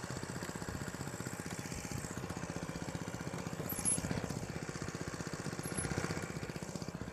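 A motorboat engine running, with a fast, even rhythmic beat.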